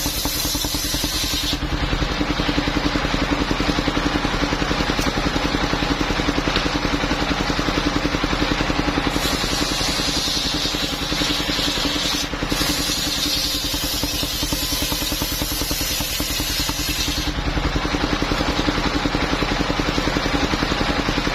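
Engine of a portable circular-saw sawmill running steadily, with a higher hiss that comes in for stretches of several seconds, as when the blade is in the cut through the coconut trunk.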